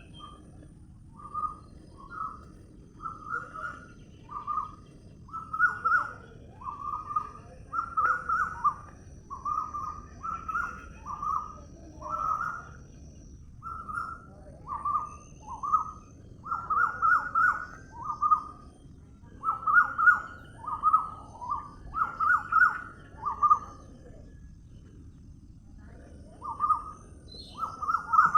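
A bird calling over and over in short, similar notes, about one or two a second, pausing briefly a few times.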